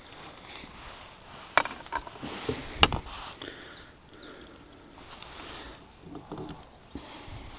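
Handling noise in a canoe while a bass is unhooked in a landing net: a few sharp knocks of gear against the canoe, the loudest about three seconds in, with smaller clatter later.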